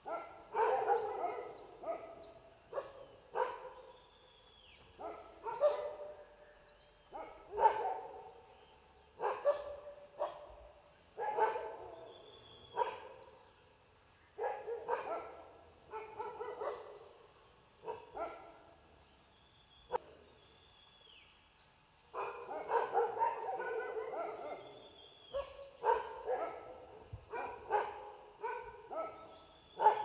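An animal calling over and over, a short call roughly every two seconds. Thin, high bird chirps and whistles come in now and then.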